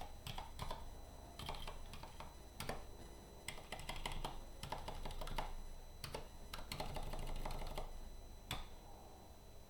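Typing on a Zinc split mechanical keyboard with unlubricated Gateron Black Silent linear switches: runs of quick keystrokes with short pauses between them, and a single keystroke near the end.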